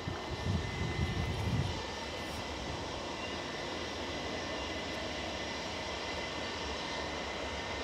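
Airbus A319 jet engines on landing rollout: a steady rushing roar with a faint high whine, with a few low rumbling buffets in the first two seconds.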